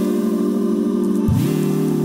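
Background music of sustained chords, moving to a new chord just past halfway.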